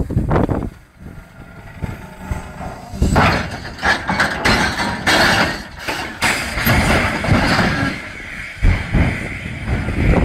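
A loaded side-dump aggregate wagon overturning as its load of aggregate tips it over: from about three seconds in, a run of heavy metal bangs and crashes, then a continuing rushing rumble as the load spills and dust rises.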